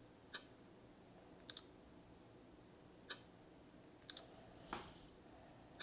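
Clicks from a Xiaomi Mi 9T smartphone being locked and unlocked over and over with its in-display fingerprint sensor: sharp single clicks about every 2.7 seconds with quick double clicks between them, and a softer tap near the end.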